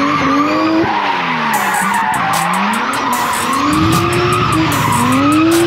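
Lexus IS300 doing donuts. The engine revs rise and fall several times and then climb and hold near the end, while the spinning rear tyres squeal and skid on the tarmac.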